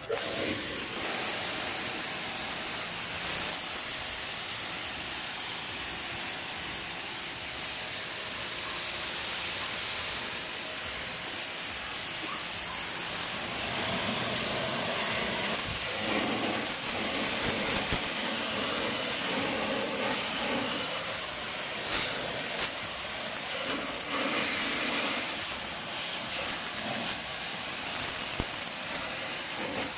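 Steady hiss of a water spray jet washing a window-type air conditioner.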